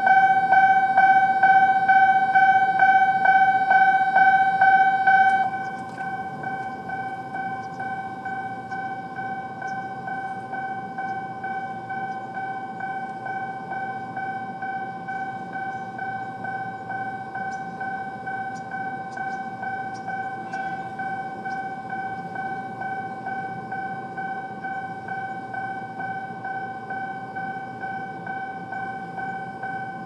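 Electronic level-crossing warning bell of the high-pitched Mizuma type, ringing in an even rhythm of a little under two strokes a second to warn of an approaching train. About five seconds in, it drops to a quieter level and rings on.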